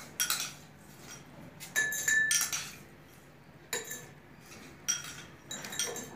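Metal spoon and crushed ice clinking against glass as ice is spooned from a glass bowl into a tall glass tumbler: a handful of sharp clinks, each with a short ringing tone, spread over the stretch, with a quick cluster about two seconds in.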